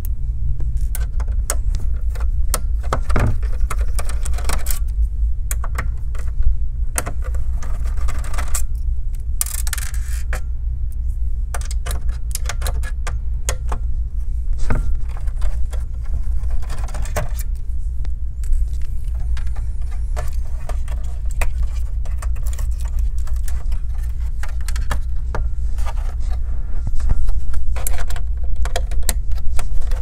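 Irregular small clicks, rattles and scrapes of hands working cables, connectors and parts on the metal chassis of a disassembled all-in-one computer, over a steady low hum.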